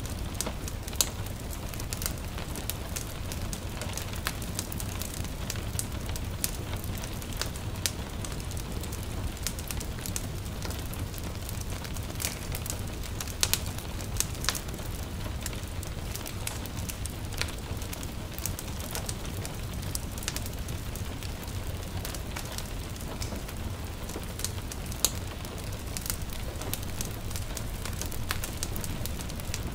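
Crackling wood fire with irregular sharp pops, a few louder than the rest, over a steady hiss of light rain and a low rumble.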